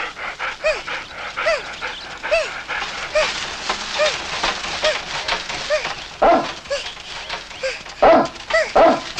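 A large dog barking as it runs, the loudest barks about six seconds in and several close together near the end, over a steady rustle and a short squeak repeating about once a second.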